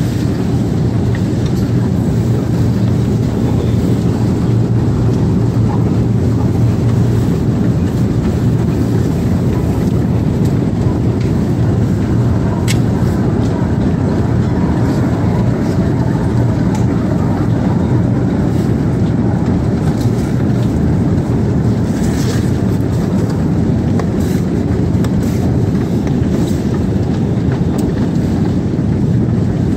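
Escalator running: a steady low mechanical hum and rumble with a few light clicks.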